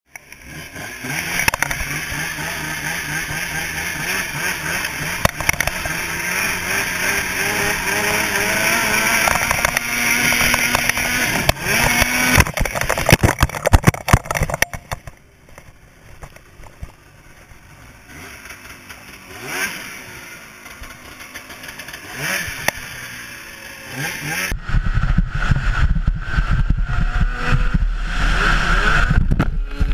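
Polaris 600 IQ snowmobile's two-stroke twin engine running and revving. There is a run of loud clattering knocks about halfway through. A sudden heavy low rumble comes in over the engine for the last few seconds as the sled heads for the pond.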